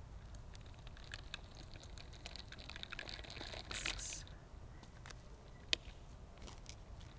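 Faint scraping and rustling of a cat rolling on rough asphalt, with scattered light clicks of grit. It swells as the cat rolls over about four seconds in, and a single sharp click comes a little later.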